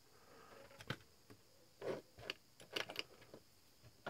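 Hands rummaging through small tools and parts on a workbench: faint, scattered light clicks and knocks, with a soft thud about two seconds in and a quick run of clicks just before three seconds.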